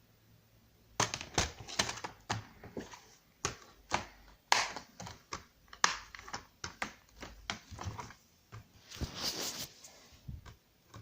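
Handling noises from a plastic Blu-ray case being opened and handled: a fast, uneven run of clicks, taps and knocks, with a short rustle near the end.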